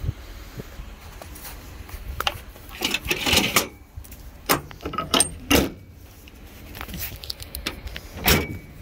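Fold-out tailgate step on a Ford Super Duty pickup being handled and stowed: a series of metallic clicks, clanks and rattles from its handle pole and latches, with a louder clank near the end.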